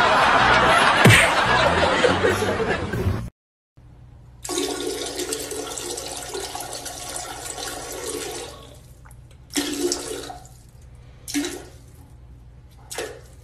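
A loud, noisy stretch with several knocks stops abruptly. About four and a half seconds in, a toilet flushes with a steady rush of water lasting about four seconds, followed by a few short sounds.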